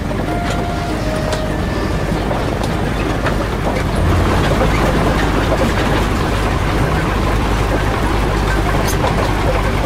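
Steady vehicle engine noise, a dense rumble that grows louder about four seconds in; a few held music notes die away in the first couple of seconds.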